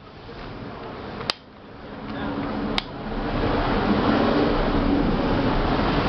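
Small tower-fan motor energised and humming, with a rushing noise that builds over a couple of seconds and then holds steady; two sharp clicks come before it. The motor hums but fails to get the fan going.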